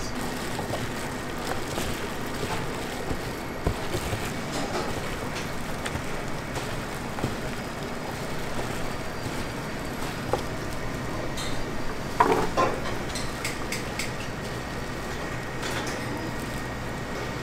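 Steady restaurant background noise with scattered clinks and knocks, and a louder clatter about twelve seconds in.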